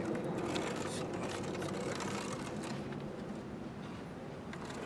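Hand-cranked metal meat grinder being turned, its auger forcing raw iguana meat through the cutter plate with a rough mechanical grinding and scattered clicks.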